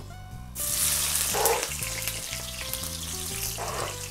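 Chopped onion dropped into hot olive oil in a frying pan, starting to sizzle suddenly about half a second in and sizzling steadily after that, with background music underneath.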